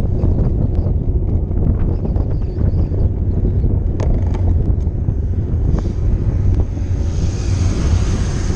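Heavy wind buffeting on a handlebar camera's microphone as a road bike descends at speed. Late on, an oncoming camper van passes close by, adding a rising rush of tyre and engine noise that peaks as it goes past.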